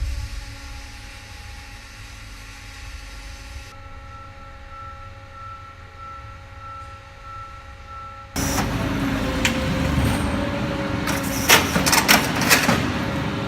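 Twin ram baler's hydraulic power unit running with a steady hum of several tones. About eight seconds in it gives way abruptly to a louder rumbling noise, with a cluster of sharp cracks and bangs near the end.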